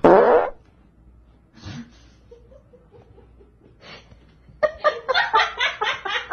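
A person laughing off camera. A loud burst comes right at the start, then the laughter breaks into quick ha-ha-ha pulses, about five a second, through the last second and a half.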